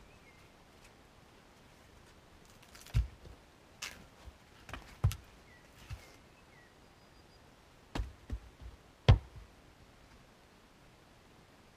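Split firewood being handled at a chopping block: a series of sharp wooden knocks as pieces are set down and knock together. The loudest come about three seconds in and about nine seconds in.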